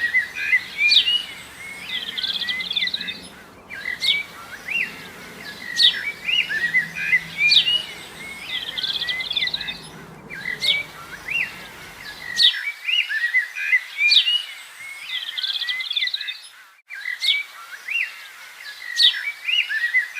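Songbirds chirping and singing in quick, high whistled notes, sweeps and trills, with the same few-second stretch repeating about every six and a half seconds. No pecking or drumming is heard. A faint low hum stops about twelve seconds in.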